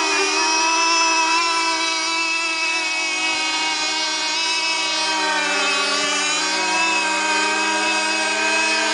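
Several 2.5 cc two-stroke methanol engines of RC racing boats running flat out, a high buzzing whine, with their pitches dipping and rising as the boats turn and pass.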